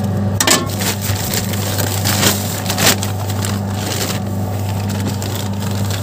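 Electric feed chopper running with a steady motor hum while zucchini is fed into it and ground up, with irregular crunching and splintering strokes, the loudest about half a second in and twice more between two and three seconds.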